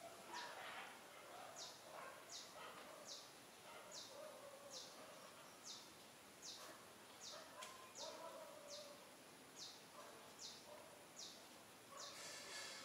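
Faint forest ambience: a short, high falling chirp repeats steadily about every second, with soft lower calls underneath and a brief burst of noise near the end.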